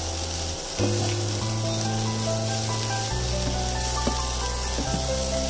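Background music of held notes that change every second or two, over the steady sizzle of shark fish scramble (sura puttu) frying in a nonstick pan as it is stirred.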